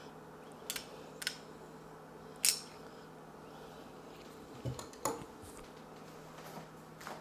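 Small metal tools and the front-sight parts clicking and tapping against a pistol slide while the sight is worked into place: about six short, sharp clicks, the loudest about two and a half seconds in.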